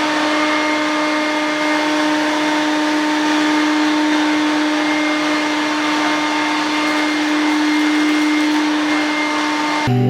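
Fortune Dragon cordless vacuum cleaner running steadily: a constant motor tone over the rush of air, cutting off abruptly just before the end.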